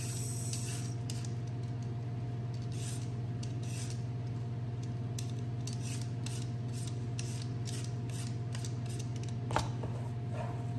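Vegetable peeler scraping the skin off a white radish (daikon) in repeated short strokes, about two a second, over a steady low hum. A single knock near the end.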